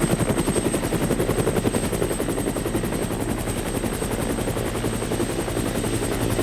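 Helicopter rotor chop: a fast, steady beating of the blades, unchanging throughout, with a faint thin high tone held above it.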